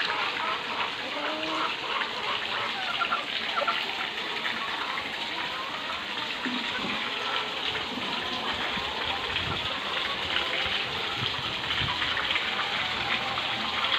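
Steady rushing and splashing of water in a catfish pond whose surface is churned by a dense crowd of catfish.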